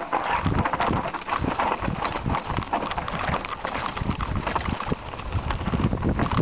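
Mountain bike rattling and clattering down a rough, stony dirt singletrack on a downhill run: a dense, irregular stream of knocks and clicks with low thumps as the tyres hit the ground.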